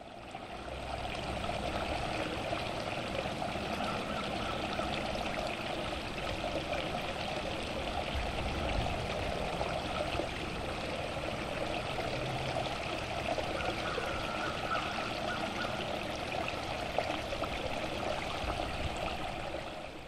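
Shallow stream water running and trickling steadily over mud and grass.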